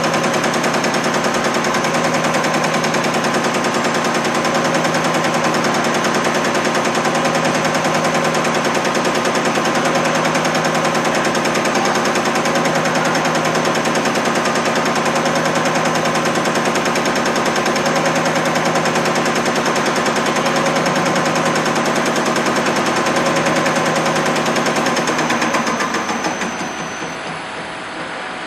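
Common rail injector test bench running: a steady machine drone with a rapid, even rattle of repeated clicks. It quietens about 26 seconds in.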